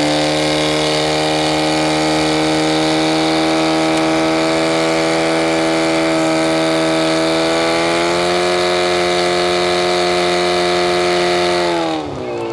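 Portable fire pump's engine running at full revs to drive two hose jets, a loud steady high-pitched engine note that lifts slightly about eight seconds in and drops away about twelve seconds in as it is throttled back.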